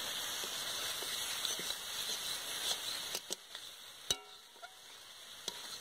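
Leafy greens sizzling in a large aluminium kadai as a metal spatula stirs them. The sizzle is steady for about three seconds and then grows quieter, and the spatula clicks sharply against the pan a few times in the second half.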